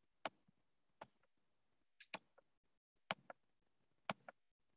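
Faint, sharp computer clicks, about one a second and several in quick pairs, as presentation slides are clicked through.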